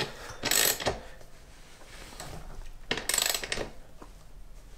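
Ratcheting combination spanner clicking as it is swung back and forth on a motorcycle's rear axle nut to tighten the axle. Two short bursts of ratchet clicks, the first about half a second in and the second about three seconds in.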